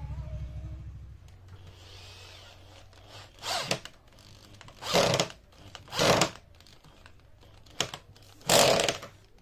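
Cordless drill boring into a rubberwood rail in five short bursts, starting about three seconds in.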